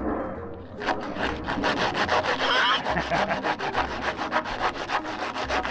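Sandpaper pulled back and forth around the cut-off steel tube of a Royal Enfield Continental GT 650's rear frame, sanding away burrs and rough bare metal left by an angle grinder before painting. The strokes start about a second in and keep up a fast, even rhythm.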